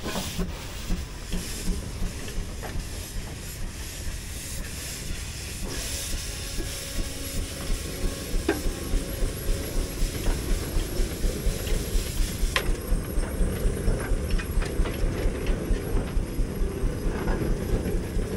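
Steam traction engine exhaust chuffing with steam hissing. The beat is slow and uneven at first, then settles into a steady rhythm of about three chuffs a second in the second half.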